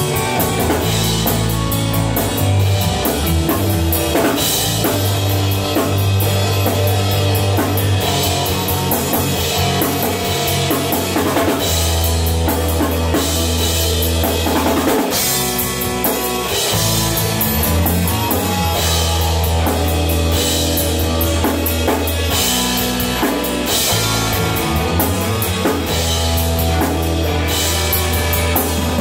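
A rock band playing live: electric guitars over a drum kit, with frequent cymbal crashes and heavy, sustained low notes.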